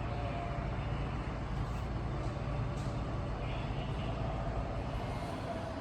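Street traffic: a steady low engine rumble from vehicles running close by.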